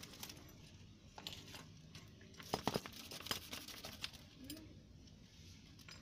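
Scattered light clicks and taps over a faint low background, with a cluster of sharper ones about two and a half to three and a half seconds in.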